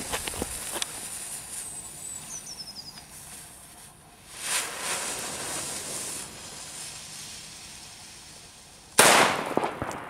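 A lit firecracker: its fuse hisses and spits for a few seconds, then it goes off with a single sharp bang about nine seconds in.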